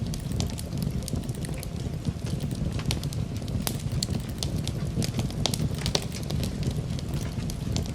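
Campfire burning: a steady low rumble of flames with frequent irregular sharp crackles and pops of burning wood.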